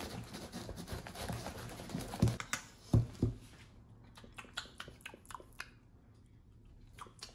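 Batter being handled and tasted: a few soft knocks and a low rustle at first, then faint mouth clicks and smacking.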